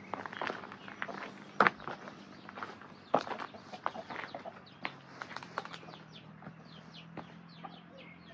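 Chickens clucking, with a run of short, high, falling chirps in the second half, over footsteps and sharp knocks on a path. A faint steady low hum runs underneath.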